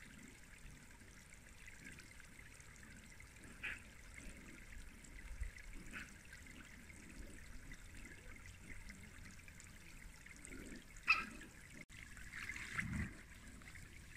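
Water jets of an inflatable sprinkler splash pad spraying and trickling onto the mat and grass, a steady faint hiss. A few light clicks, and one sharp tap about eleven seconds in.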